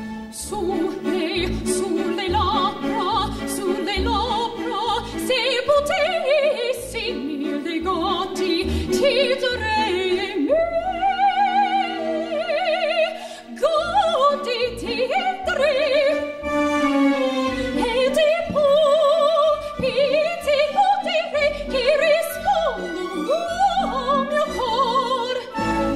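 A woman singing solo in an operatic style, holding long notes with a wide vibrato, over instrumental accompaniment.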